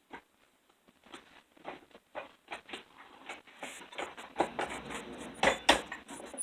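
Parts of a manual grain mill being handled and fitted together: irregular small clicks and knocks, with a few louder knocks near the end.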